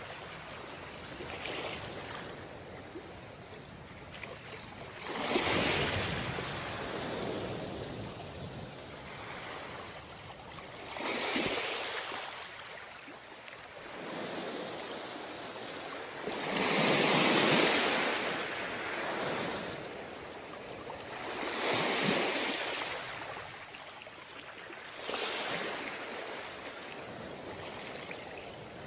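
Ocean surf: waves breaking and washing up the shore, with a swell rising and falling about every five or six seconds, the loudest about two-thirds of the way through.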